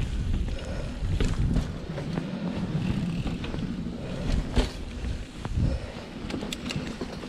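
Mountain bike rolling over a dirt trail: a steady low rumble from the tyres and wind on the microphone, with frequent sharp clicks and rattles from the bike.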